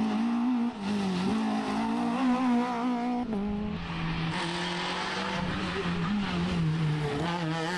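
Rally car engines running hard at high revs as the cars drive past close by. The engine note changes about three and a half seconds in as a second car takes over.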